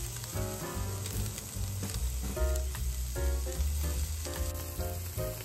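Sea bream fillets sizzling steadily as they fry on a foil cooking sheet in a pan, under background music with a bass line.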